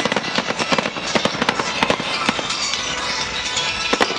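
Fireworks going off in quick succession: a rapid string of sharp bangs and pops, with music playing underneath.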